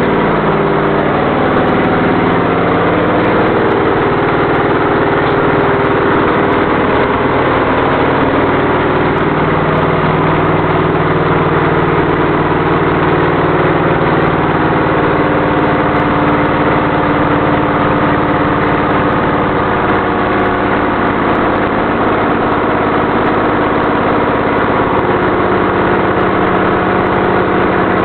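Early-1970s Chevrolet V8 idling steadily with no headers or exhaust, the exhaust ports open straight to the air: extremely loud.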